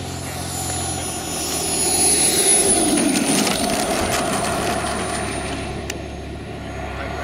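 Turbine engine of a radio-controlled F-15 model jet whining as the jet lands and rolls out along the runway. The thin high whine drops slightly in pitch, and the sound is loudest about two to three seconds in.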